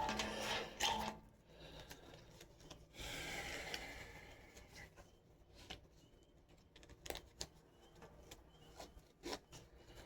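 Nylon webbing and fabric of a chest rig being handled and adjusted: rustling and sliding, loudest in the first second and again for about a second from three seconds in, with a few sharp clicks later on.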